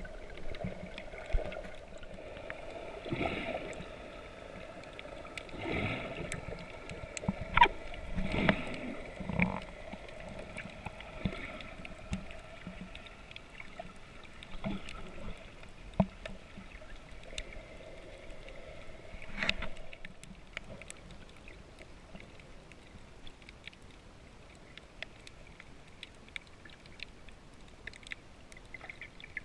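Muffled underwater sound picked up by a camera underwater: water swishing, low thumps and scattered sharp clicks, with a steady hum that fades out about two thirds of the way through.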